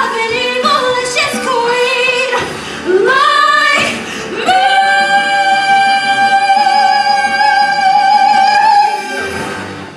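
Live singing closing a stage musical number: after a few quick sung phrases, the singers hold one long high final note with a slight waver for about four seconds, and it stops near the end.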